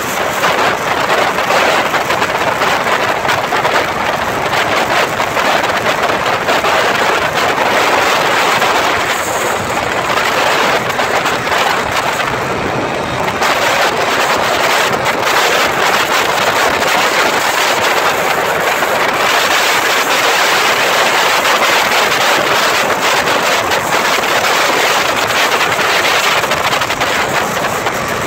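Loud, steady rush of wind on the microphone mixed with engine and road noise from a vehicle travelling at speed.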